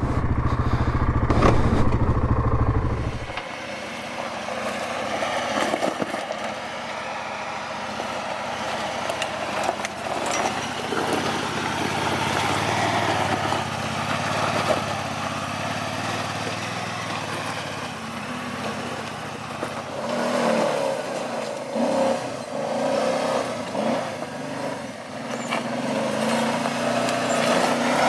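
Yamaha Grizzly 700 ATV engine running under load while climbing a steep trail, with a heavy low rumble that cuts off about three seconds in. Its pitch rises and falls in the last several seconds as the throttle changes.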